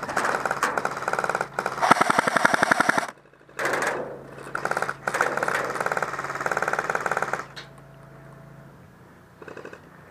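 Airsoft guns firing on full auto in long, rapid bursts, the loudest about two seconds in, stopping about seven and a half seconds in, with one short burst near the end.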